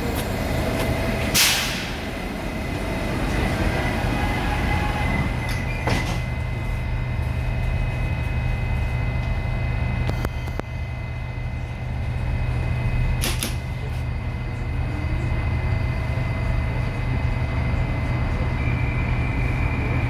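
Moscow 2020 (81-775/776/777) metro train in a station: the car's sliding doors shut about a second and a half in, over a steady low hum of the car's equipment. The train then begins to pull out, with single clicks and knocks from the car.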